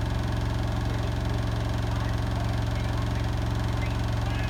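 Hotpoint WMFUG 942 washing machine running with a steady, unchanging low motor hum.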